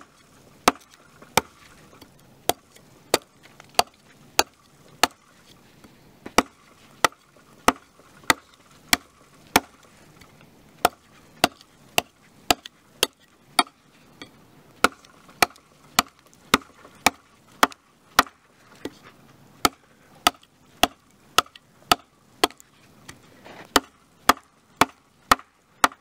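Schrade SCHF42 fixed-blade knife chopping into a live locust branch: a steady run of sharp blade-on-wood strikes, about two a second, with a couple of short pauses.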